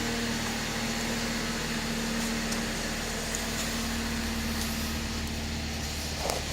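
2013 Chrysler 200's 2.4-litre four-cylinder engine idling steadily, with a short knock near the end.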